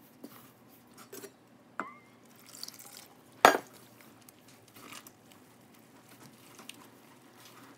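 A wooden spoon stirring flour and water into a shaggy dough in a stainless steel mixing bowl: scattered soft scrapes and knocks of the spoon against the metal bowl, with one sharp clack about three and a half seconds in.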